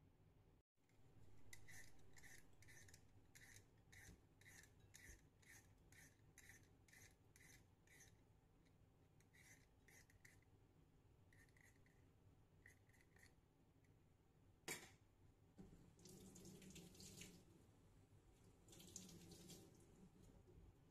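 Faint scraping of a hand peeler stripping the skin off a raw potato, about two strokes a second, then slower and more scattered. About fifteen seconds in there is a single sharp knock, followed by two short rustling scrapes.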